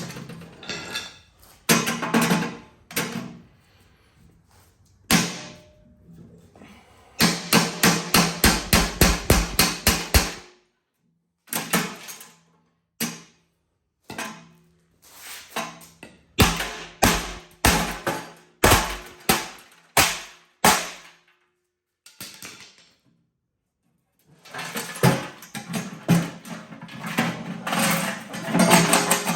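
Hammer blows on the metal of a small safe, coming in runs of quick strikes about three or four a second with scattered single knocks between. The sound breaks off into dead silence a few times.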